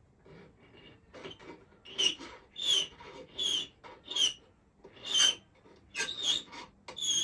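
Hand file rasping across the end of a silver ring band in repeated strokes, squaring it flat for an edge-to-edge solder joint. The strokes start about a second in, faint at first, then come louder with a squeaky edge, roughly one or two a second.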